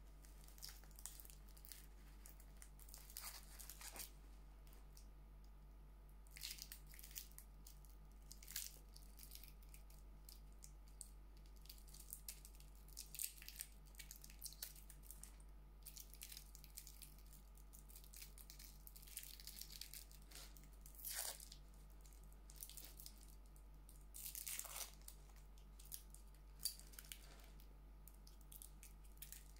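Scattered small clicks, crackles and rustles of hands handling a wood-and-stainless-steel wristwatch: slipping it off its fabric cushion and fiddling with the metal link bracelet and clasp. A faint steady low hum runs underneath.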